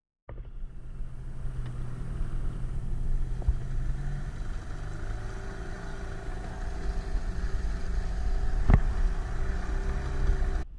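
Outboard motor running steadily, pushing a small aluminium tinnie along, with wind and water noise over the hull. A single sharp knock comes about three-quarters of the way through.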